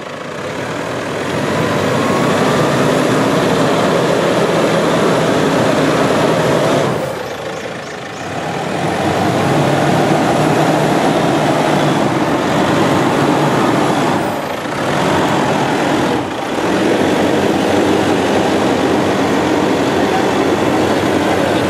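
Toyota Hilux 4WD engine working under load as it crawls up a steep, rutted dirt climb, easing off and revving back up about a third of the way in and twice more later.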